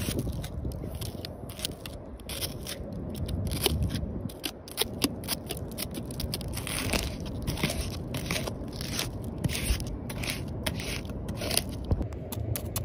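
Pink apple snail egg clutch crushed and scraped off tree bark with a flat scraper blade: many irregular crackling pops as the eggs burst, along with the blade scraping on the bark.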